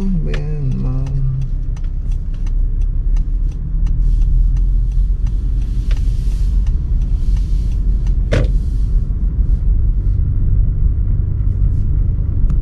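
Inside a moving car: a steady low rumble of engine and tyres on the road, with scattered light clicks and one sharper knock a little past the middle.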